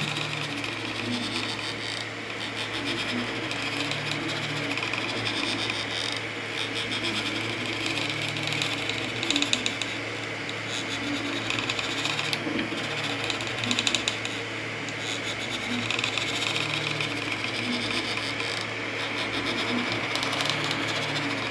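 FDM 3D printer printing: its stepper motors give short low tones that change pitch with each move, over the steady whir and hiss of its cooling fans, with a few light clicks.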